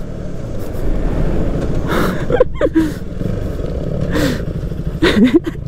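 Motorcycle engine running under way, with wind rushing over the helmet microphone.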